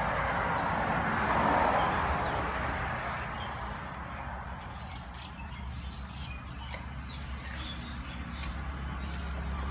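Two dogs eating from a metal bowl and a pan, with short sharp clicks of chewing and of muzzles against the dishes, while birds chirp in the background. A broad rushing noise swells about a second and a half in and fades over the next couple of seconds.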